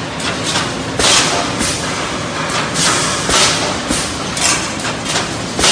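Automatic wire mesh panel welding machine running: its resistance welding head fires across the wires in repeated sharp bursts with thuds, about one a second or a little faster, over a steady mechanical noise.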